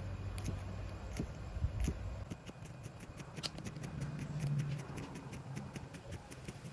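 A long kitchen knife chopping fresh herbs on a thick round wooden chopping block. There are a few separate cuts at first, then a fast, even run of chops, several a second, from about two seconds in.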